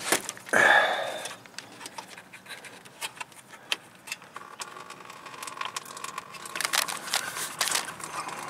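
A plastic radiator drain petcock being twisted open by hand, with clicks and a loud scrape about a second in. Then coolant starts to run out into a catch bucket: a steady splashing that grows louder over the last few seconds.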